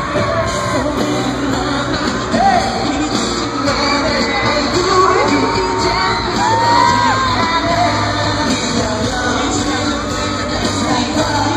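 Live pop concert: loud amplified music with a male vocal group singing into microphones, the sound filling a large hall, with fans shouting and whooping over it.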